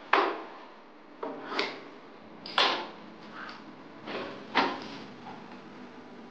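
Small objects set down and dropped into a white plastic drawer by a robot's hands, with the drawer slid shut: about six short clacks and scrapes, roughly a second apart.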